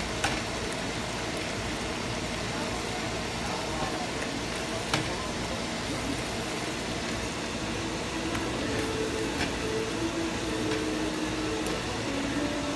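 Watermelon rind curry simmering and sizzling in a stainless steel pan with a steady hiss while a silicone spatula stirs it. A couple of sharp clicks of the spatula against the pan.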